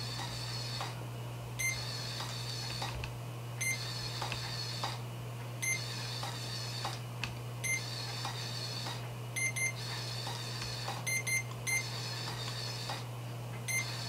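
CADD-Legacy 1 infusion pump priming its tubing: a short beep about every two seconds, each followed by a steady whir of the pumping mechanism, with a few quick double and triple beeps near the end, over a steady low hum.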